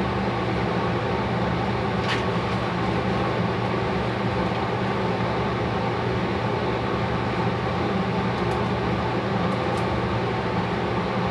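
Angle grinder running steadily, grinding slag off a steel workpiece to clean it before welding.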